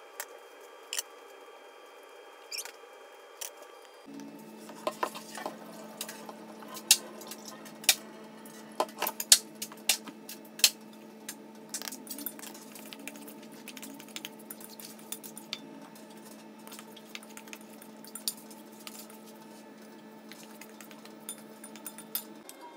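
A metal spoon clinking and scraping in a stainless steel bowl as uncooked rice is stirred with spices: many sharp irregular clicks from about four seconds in until near the end.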